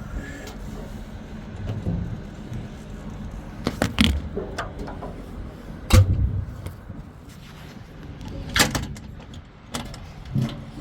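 Metal clunks and clatters from a Cat 395 excavator's service access doors being opened and shut, five or so knocks with the loudest about six seconds in.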